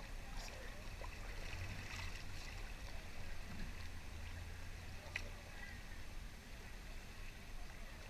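Faint water sounds around a kayak on a river: small drips and splashes over a steady low rumble, with one sharp click about five seconds in.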